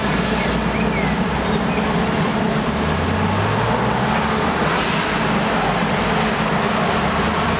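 Steady city traffic noise, with a vehicle's engine hum swelling and rising slightly a few seconds in.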